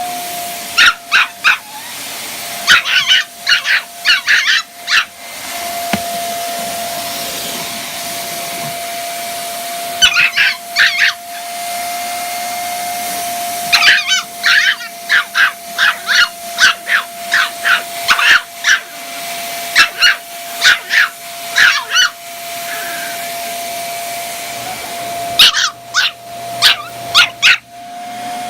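Vacuum cleaner running steadily with a constant whine, while a puppy scared of it barks in repeated bursts of high, sharp yaps, six bouts with short gaps between.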